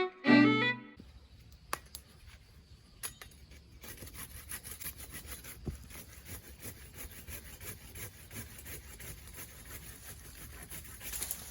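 A violin music note ends within the first second, followed by faint outdoor ambience with a few soft clicks. From about four seconds in, a steady, high-pitched, fast-pulsing trill of insects continues.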